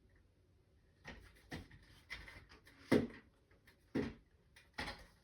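About six light knocks and clicks, a second or so apart, the loudest about three seconds in, from metal blind brackets and the mini blind's headrail being handled.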